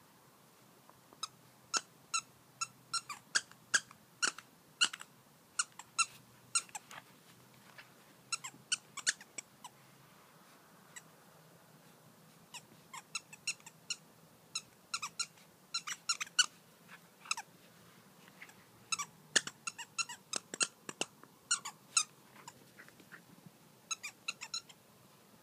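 Squeaky toy squeaking over and over as a puppy bites down on it: short, high squeaks in quick clusters of several at a time, with brief pauses between the clusters.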